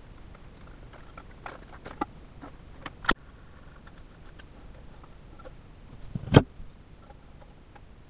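Scattered clicks and knocks of a plastic fill valve and its locking nut being handled and fitted into a porcelain toilet tank, with one louder, sharper knock about six seconds in.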